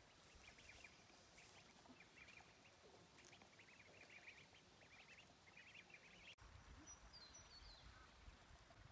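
Ducklings peeping: rapid clusters of short, high, upward peeps for about the first six seconds. After a sudden break, a low rumble with a few higher chirps.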